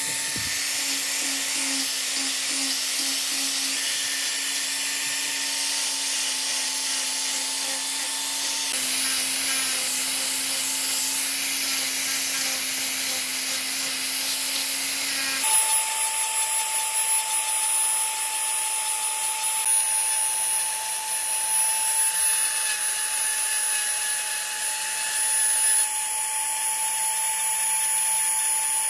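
Hand-held power tool running steadily against wood. Its note shifts about nine seconds in, and again about fifteen seconds in, where the lower hum drops away and a higher whine carries on.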